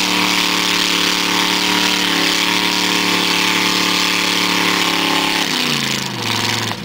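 Chevrolet S-10 mud truck's engine held at high revs while its big mud tyre spins in deep mud, flinging mud. About five and a half seconds in the revs fall away as the throttle is let off.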